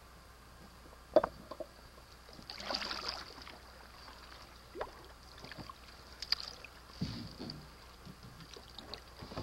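Canoe being paddled: paddle strokes in the water with splashes and drips, and a sharp knock about a second in. A faint steady high whine runs underneath.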